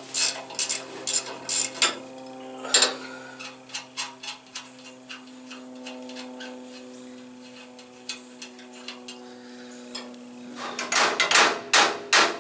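Hand ratchet clicking in short strokes on a suspension bolt of a G-body stock car's front frame, with a steady low hum underneath. Near the end, a run of loud hammer blows on the steel steering knuckle and lower ball joint.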